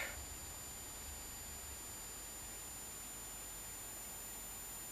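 Faint, steady high-pitched whine from a high-voltage oscillator driving a flyback transformer at about 8 kHz, the high-voltage supply for a cathode ray tube.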